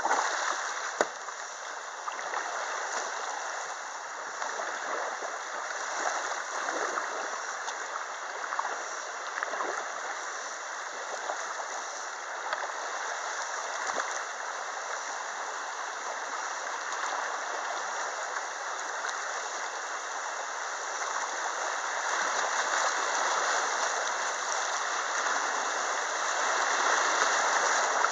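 Shallow river water rushing and splashing over rocks in riffles: a steady wash of water that grows louder over the last several seconds. One sharp knock about a second in.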